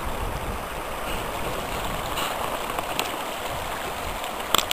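Steady rush of a fast river running over rocks and riffles, with a couple of short clicks just before it cuts off.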